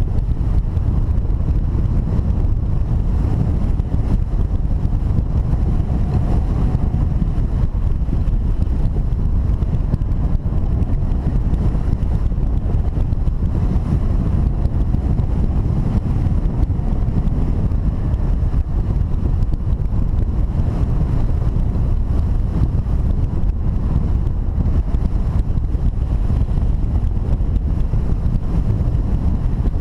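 Airflow rushing over the glider-mounted camera's microphone during hang glider flight: a steady, loud wind rumble, heaviest at the low end.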